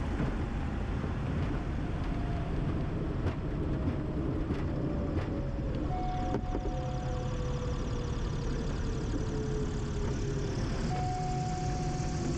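Cockpit noise of a Diamond DA-42NG Twin Star during landing, its two Austro engines at low power: a steady rumble and hiss with one tone gliding slowly down in pitch. There are a few light knocks in the first half and a couple of short steady beeps later on.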